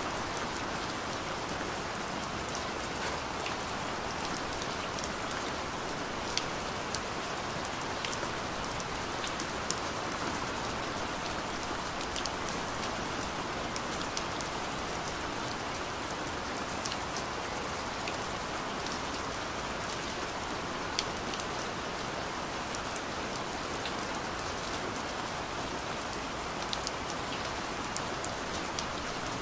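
Steady rain falling without letup, with scattered single drops ticking sharply close by.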